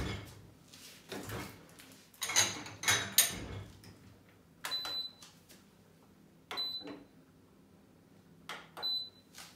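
A few knocks and a short spell of clattering handling noise, then three short high electronic beeps about two seconds apart, each starting with a click.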